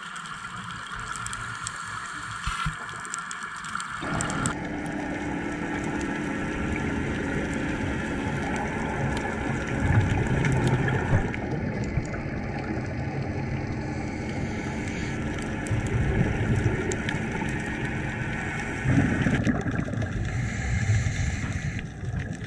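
Underwater ambience heard through a camera housing: steady muffled water noise with gurgling swells, changing abruptly about four seconds in.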